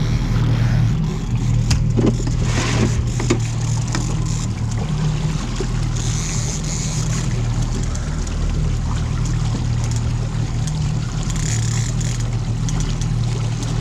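Outboard motor running steadily at trolling speed, a constant low hum with the wash of water along the hull, and a few short clicks in the first few seconds.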